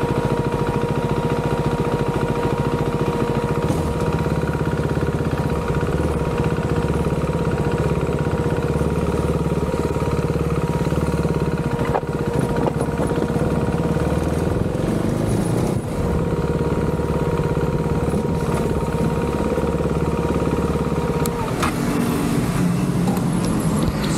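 A vehicle engine running steadily while on the move, with road noise and a steady high whine that stops near the end.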